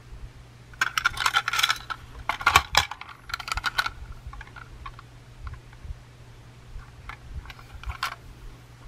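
Hard plastic toy train car being handled and turned in the hands: bursts of rapid clicking and rattling between about one and four seconds in, then a few scattered clicks.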